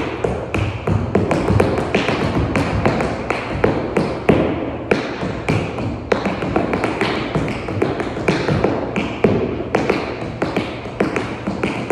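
Metal taps on tap shoes striking the floor in a quick, rhythmic a cappella tap routine, with no music: a dense run of sharp clicks with some louder accented hits.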